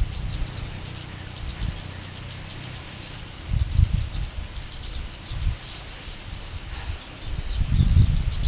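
Six-cylinder Volvo diesel engine, with only two of its six glow plugs working, making a low, uneven sound that swells in surges about halfway through and again near the end. Birds chirp faintly throughout.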